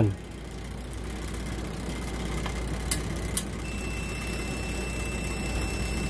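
Two light clicks, then a steady high continuity beep from a clamp meter starting a little past halfway, showing that the washing machine timer's contacts between the probed wires are closed.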